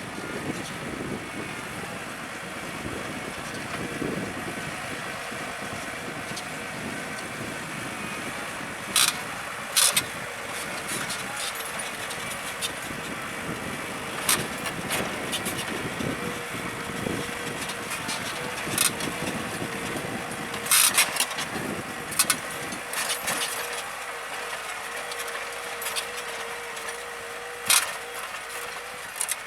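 New Holland T6070 tractor running steadily under load while pulling a four-furrow reversible mouldboard plough, with a steady whine over the second half and sharp knocks now and then.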